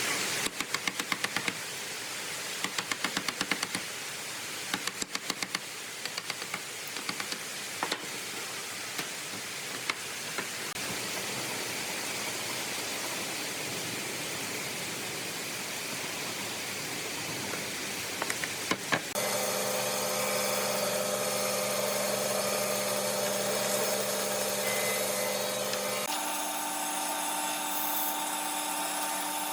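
Power tools working wood. At first there is a noisy whir broken by bursts of rapid clicking. About 19 s in, a motorised tool takes over with a steady whine, which drops to a different pitch near 26 s.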